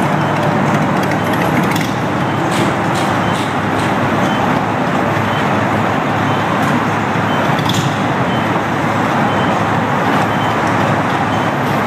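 Steady road traffic noise: a constant wash of passing cars and trucks, with a few faint clicks.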